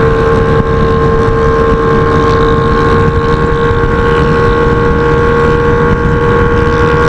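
Yamaha XJ6's 600 cc inline-four running at a steady cruise through a straight-pipe exhaust with no muffler. The engine note holds one constant pitch throughout, over a dense low rumble.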